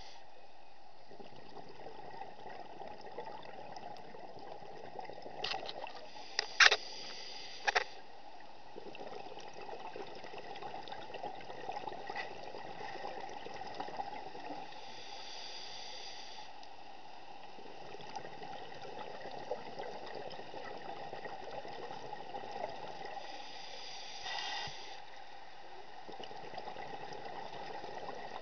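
Underwater ambience through a diving camera's housing: a steady muffled hiss. A few sharp clicks come about six to eight seconds in, and twice a longer rush of scuba exhaust bubbles.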